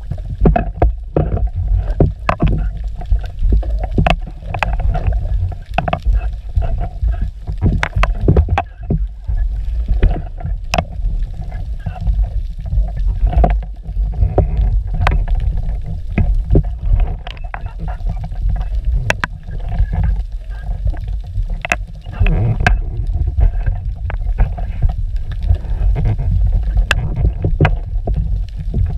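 Muffled underwater sound picked up by a camera in a waterproof housing: a low rumble of moving water with frequent sharp clicks and knocks from the gear being handled.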